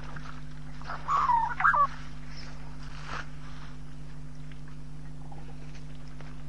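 A bird gives a quick cluster of short, gliding calls about a second in, with a fainter call a second later, over a steady low electrical hum.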